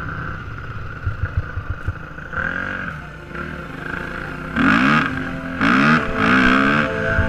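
Yamaha YZ450F dirt bike's single-cylinder four-stroke engine revving hard under acceleration. Its pitch climbs in three pulls, about two, four and a half, and five and a half seconds in; the last two are the loudest.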